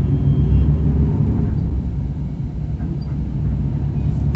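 Steady low rumble of a moving intercity bus, its engine and road noise heard from inside the passenger cabin.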